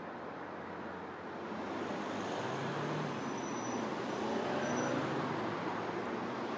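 Road traffic noise: a steady rush of passing vehicles that swells louder a second or two in.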